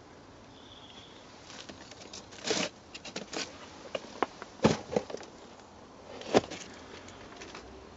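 Handling noise: a few scattered knocks and scuffs, the sharpest about two and a half, five and six and a half seconds in, with no fireworks going off.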